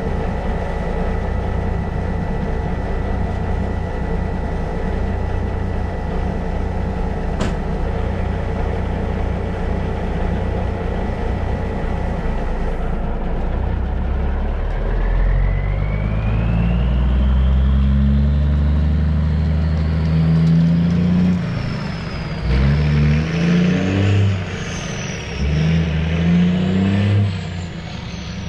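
Diesel semi truck idling steadily, with a single sharp click about seven seconds in. About halfway through it pulls away, the engine revs climbing and dropping back several times as it shifts up through the gears, with a high whine rising and falling along with the revs.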